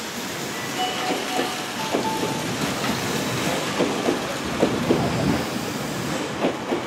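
Tokyu 6020 series electric train moving along a station platform: steady wheel-on-rail rumble and hiss with irregular clacks from the wheels. Brief steady high tones sound in the first couple of seconds.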